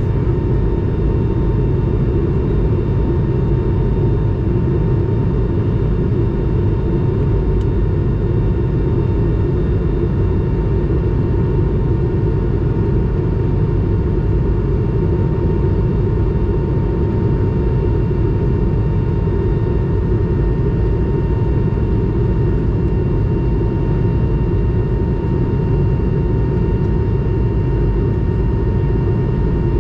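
Steady cabin noise of an Airbus A220 in flight, heard from a window seat beside the engine: a constant rumble of engine and airflow from its Pratt & Whitney PW1500G geared turbofans, with a thin, steady whine on top.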